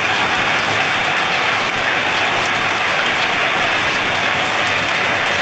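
Loud, steady rushing noise of a violent storm: an even hiss of wind and driving rain with no let-up and no distinct strokes.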